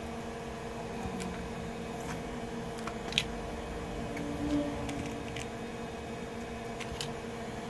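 Steady electrical hum of running bench equipment, with a few small sharp clicks and taps of tools; the loudest click comes about three seconds in.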